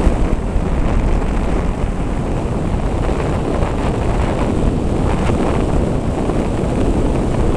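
Steady rushing wind on the microphone from a moving vehicle, with a low road rumble underneath.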